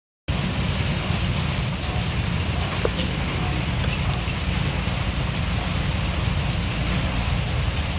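Open cooking fire burning with a steady hiss and a few faint crackles, with wind rumbling on the microphone. A short dropout at the very start.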